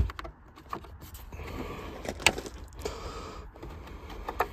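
Light plastic clicks and rattles of a 1995–1997 Lincoln Town Car's glove box and dashboard trim being handled, as the glove box is worked loose to be dropped. The sharpest click comes a little past two seconds in.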